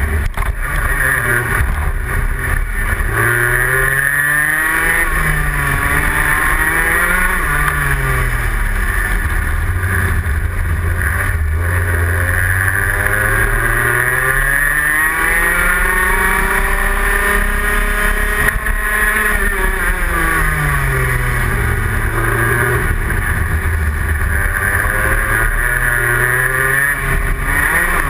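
Onboard sound of a Rotax Max 125 cc two-stroke kart engine at racing speed. The revs rise and fall through a run of corners, then climb steadily for several seconds, hold high, and drop off sharply about twenty seconds in before picking up again.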